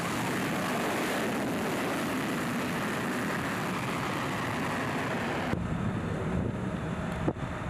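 F-35B jet engine noise, loud and steady, as the jet hovers and climbs away. About five and a half seconds in it cuts abruptly to a duller wind noise on the microphone.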